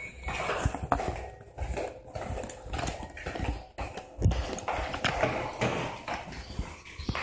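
Footsteps on a tiled floor mixed with rubbing and knocking of a hand-held phone as the person walks: irregular knocks and low thumps, with one louder thump about four seconds in.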